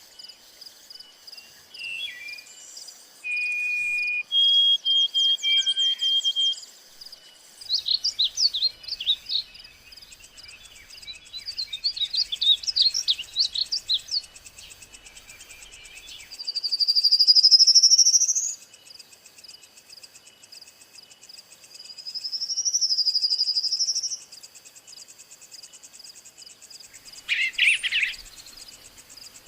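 Several wild birds calling over a steady, high insect drone: short held whistled notes, quick trilling runs, then two loud rising whistles in the middle and a brief harsh call near the end.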